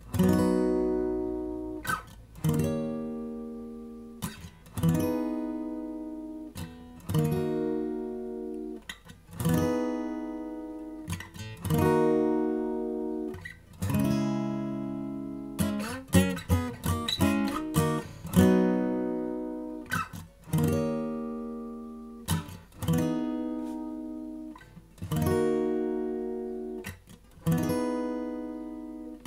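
Steel-string acoustic guitar strumming chords, one strong strum about every two seconds, each left to ring and fade. A quicker run of strums comes just past the middle.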